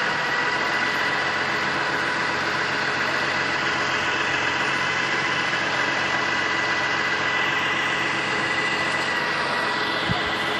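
Utility bucket truck's engine idling steadily, with a thin high tone running over it.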